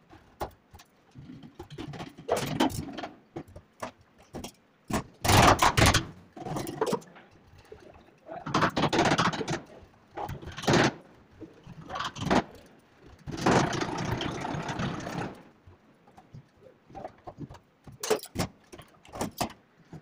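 Hand chisel scraping and paring wood out of a lock mortise in the edge of a wooden door, in a series of separate strokes of varying length, with a few sharp clicks near the end as the metal mortise lock is offered up to the recess.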